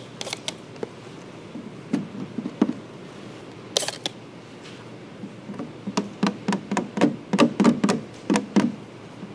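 Hand trigger spray bottle spritzing soapy slip solution onto a headlight: a few trigger clicks at the start and one short spray hiss a little before the halfway point. Later comes a quick irregular run of light knocks and taps as the film is worked with a small tool.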